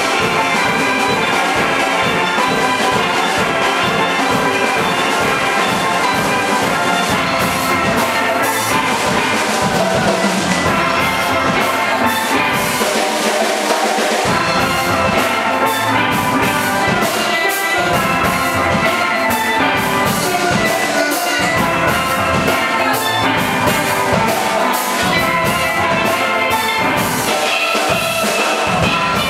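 Steel drum band playing a lively tune on steel pans, with percussion keeping a steady beat. The low notes drop out for a couple of seconds about twelve seconds in, then come back.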